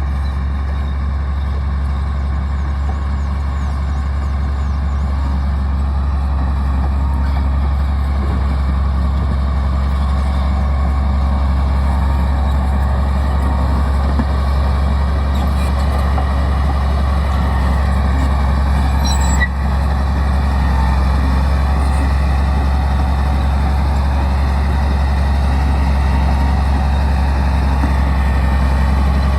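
Crawler bulldozer's diesel engine running steadily with a deep, constant hum, growing slightly louder, and a single brief click about two-thirds of the way through.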